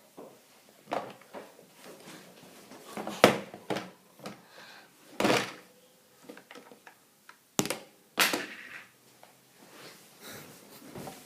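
Scattered knocks and clatters, four of them loud and sharp, with small faint handling noises between.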